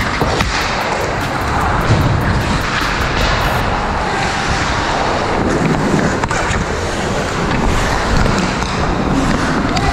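Ice hockey skate blades carving and scraping across rink ice, with wind rushing on the microphone and a few sharp knocks.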